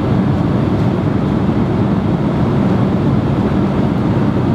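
Steady loud drone of a jet airliner's cabin noise in flight: engine and airflow rumble, strongest in the low end.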